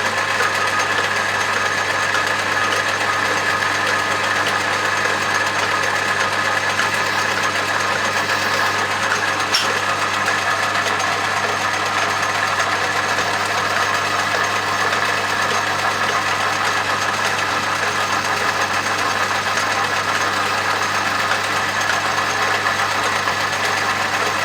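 Metal lathe running steadily, its motor and gearing humming evenly while it takes a light finishing cut on the bar, with a faint click about ten seconds in.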